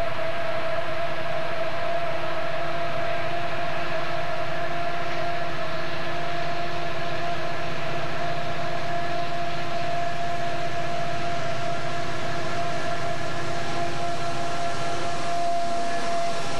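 Southern Pacific EMD tunnel-motor diesel locomotives working hard past at close range: a loud, steady engine drone with a high whine held on one pitch. The whine dips slightly at the very end as the units go by.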